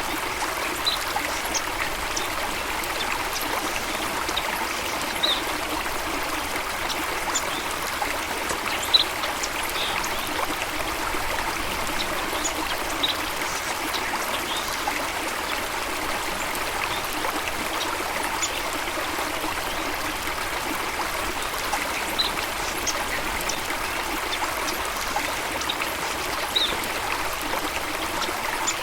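Steady rushing and trickling of a flowing stream, with scattered short high chirps over it.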